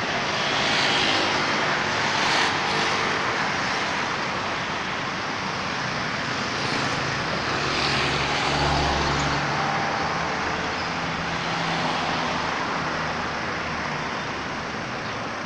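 Steady road traffic noise, swelling a few times as vehicles pass, with a low rumble about eight seconds in.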